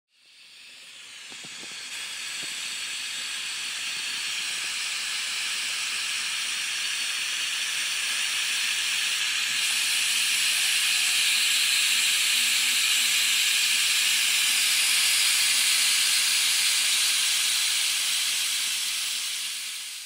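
Steady hiss of escaping steam, building up over the first two seconds and fading near the end.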